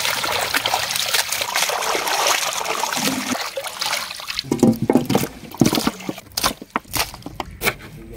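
Water pouring and trickling steadily for about three and a half seconds, then breaking into a run of separate splashes and knocks.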